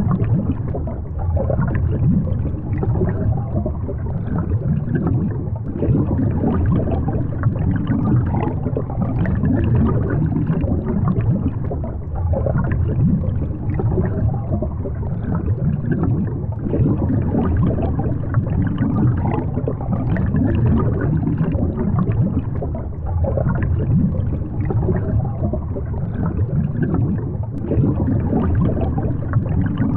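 Water heard underwater through a submerged action camera: a muffled low rushing and gurgling that swells and eases unevenly.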